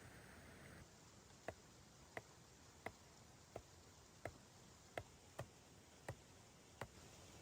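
A regular series of about nine short, sharp clicks, roughly one and a half a second, starting about a second and a half in, over faint hiss.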